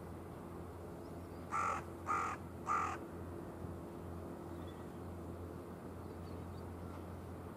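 A bird gives three short, harsh calls about half a second apart, starting about a second and a half in, over a steady low background rumble.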